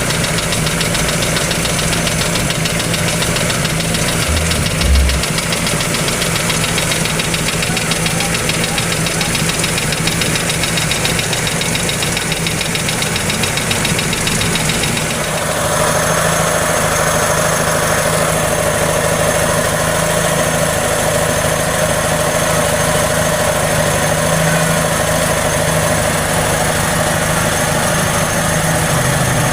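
Toyota 2E inline-four engine idling with a rapid, steady knock. A brief low thump comes about five seconds in, and about halfway through a steady whine joins the engine sound.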